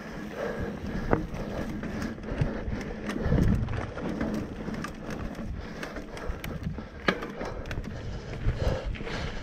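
Mountain bike riding over a dirt trail with roots: a continuous rough rumble of the tyres and bike, heavier about three seconds in, with a few sharp knocks, the clearest about a second in and about seven seconds in.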